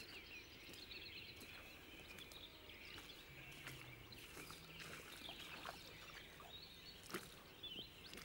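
Faint riverside ambience: small birds chirping and twittering in the distance, with a few soft crunches and clicks of footsteps on a gravel bank, the sharpest about seven seconds in.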